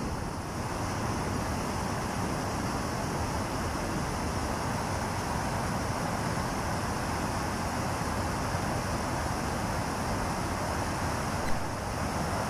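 Water rushing over a stepped river weir in high flow, a steady even rush of noise. A single brief tap sounds near the end.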